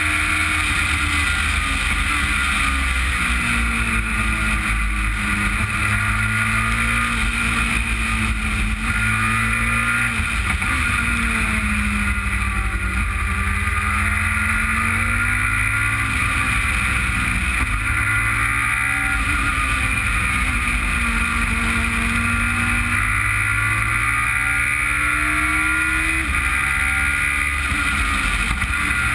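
Race car engine heard onboard at racing speed, its pitch climbing and falling again and again through the gears and corners, over a steady rush of wind and road noise.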